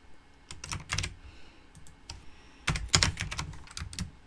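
Typing on a computer keyboard: a few keystrokes about half a second in, then a faster run of keystrokes from a little past the middle to near the end.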